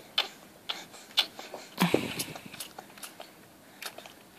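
A baby sucking and gumming on its own fingers: scattered wet smacking and clicking mouth sounds, with a brief grunt that drops in pitch about two seconds in.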